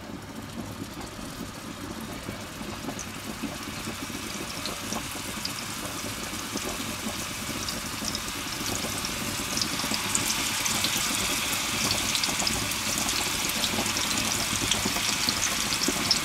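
Raw minced-meat balls sizzling and crackling as they fry in hot oil in a pan. The sizzle grows steadily louder as more meatballs are dropped in, crackling most from about halfway through.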